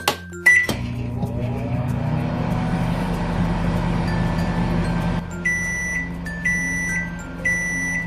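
Battery-powered toy microwave oven: a click and a short beep as it is started, then a steady hum while it runs for about four and a half seconds. It stops with three short high beeps about a second apart, the end-of-cycle signal.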